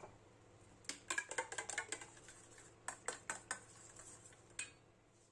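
Metal spoon clinking and scraping against a stainless steel bowl as thick yogurt is stirred: a quick run of clinks about a second in, a few more around three seconds, and one last clink near the end.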